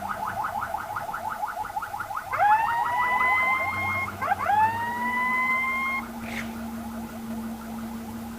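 Ambulance electronic siren in a fast pulsing yelp of short rising chirps, about eight a second, twice broken by a long whoop that slides up and holds, about two seconds in and again about four seconds in. The erratic switching fits what the title calls an 'error' siren.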